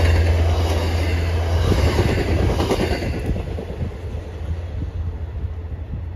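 MBTA commuter train's bilevel passenger coaches passing close by, wheels clattering on the rails over a heavy rumble that fades steadily as the train moves off down the line.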